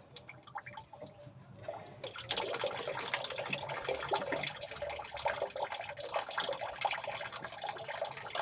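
Water running and spattering, with many small drips and splashes, starting about two seconds in.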